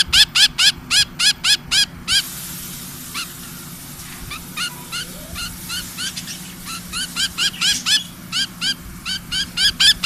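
Budgerigar calling: a rapid series of short, sharp chirps, about five a second, thinning out in the middle and quickening again near the end. The bird is held in the hand while its sore leg is handled.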